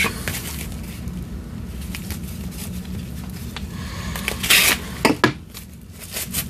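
A knife slitting open a small padded paper mailer: a short stretch of paper cutting and tearing about four and a half seconds in, followed by two sharp crackles, over a steady low hum.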